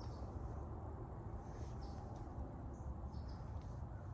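Quiet outdoor background: a few short, high bird chirps over a steady low rumble.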